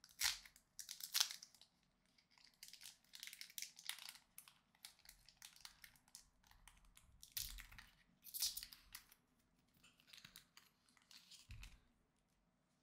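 Foil wrapper of a Pokémon card booster pack crinkling in the hands, then trading cards rustling and sliding against each other as they are handled, in a series of short, crackly bursts that stop shortly before the end.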